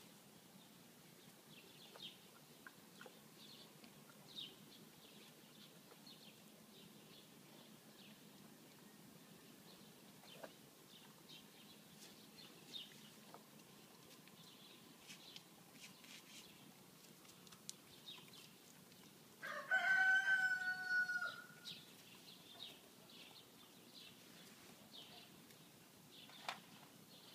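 A rooster crows once, one call of about two seconds, over faint scattered bird chirps.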